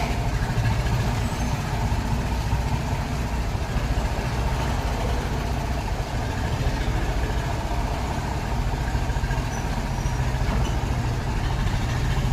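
Tractor engine running steadily with a low, heavy drone.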